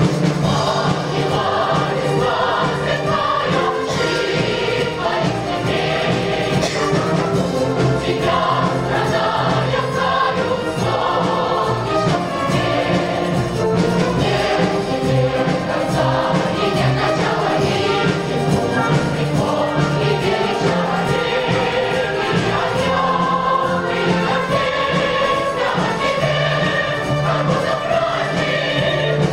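Large combined choir of children and adults singing.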